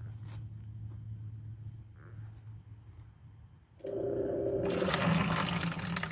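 Discharge pulse of a bladder pump: about four seconds in, a sudden gurgling sputter as air-driven water reaches the end of the discharge tube, then a stream of groundwater pouring and splashing into the FieldSink bucket. The compressor squeezing the bladder is pushing out one pulse of water.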